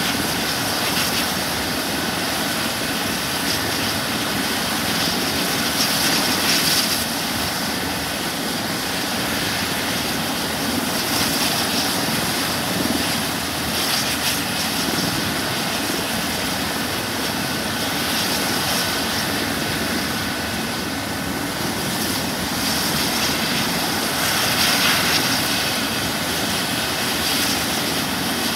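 Airbus EC135 twin-turbine helicopter running at idle on the ground after landing: a steady turbine whine over a broad rush of engine and rotor noise, swelling slightly a few times.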